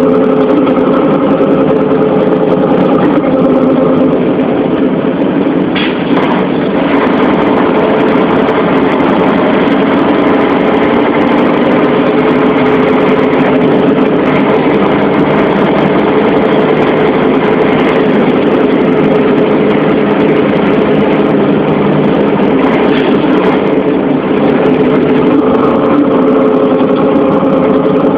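Heavy vehicle engine running steadily at an even speed, with a faint click about six seconds in.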